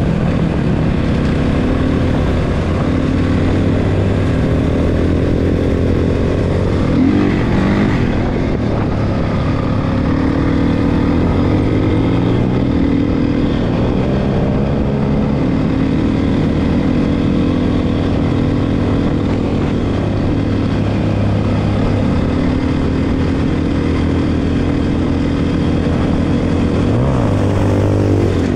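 Dirt bike engine running under changing throttle, its pitch rising and falling as it is ridden.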